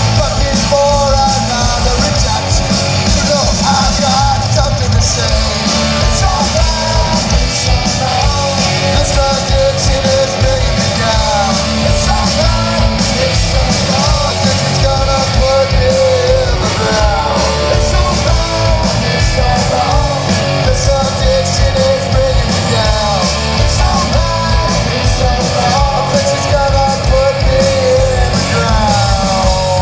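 A live rock band playing loud, with electric guitars and drums under a lead singer singing over them.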